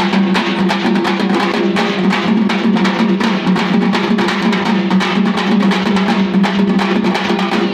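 Fast, dense drumming on handheld drums struck in a rapid, unbroken rhythm, over a steady low drone.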